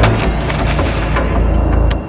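Loud background music with a heavy bass and sharp percussive hits.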